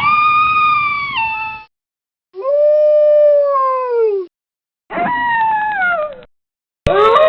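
Wolves howling: three separate long howls, each a held note that slides down in pitch at its end, with short silences between them. Near the end a click is followed by a steady ringing tone.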